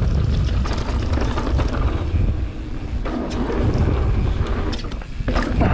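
Wind buffeting the camera microphone as a mountain bike rolls fast down a dirt trail, with tyre noise on the dirt and scattered clicks and rattles from the bike. Two brief lulls come about halfway and near the end.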